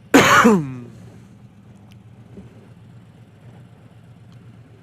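A man's short, loud groan falling in pitch, just after the start. Under it, the low steady idle of a Harley-Davidson Road Glide's V-twin engine.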